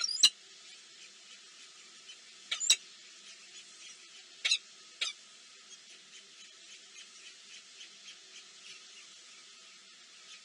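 A bird's short sharp chirps, four of them in the first half, over a steady faint hiss.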